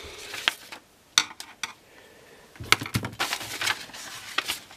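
A few sharp clicks and taps, then from about three seconds in a sheet of paper rustling as it is handled.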